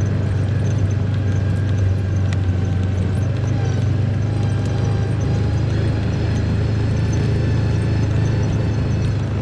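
Farm vehicle's engine running steadily while driving, a constant low drone with no change in pace.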